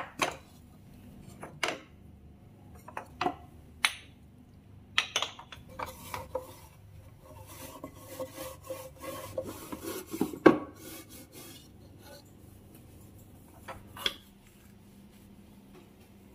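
Ceramic storage jars knocking and clinking as they are handled on a wooden spice rack, with a microfiber cloth rubbing along the wooden shelf partway through. About seven sharp knocks are spread across the stretch, the loudest about ten seconds in.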